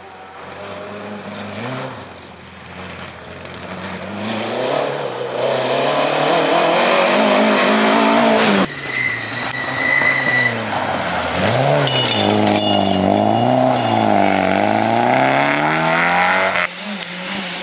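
Rally car engines being revved hard on a gravel stage, the first a Ford Escort Mk2. The engine note climbs, drops at lifts and gear changes, and climbs again, with tyre and gravel noise underneath. The sound breaks off suddenly twice as one car's run gives way to the next.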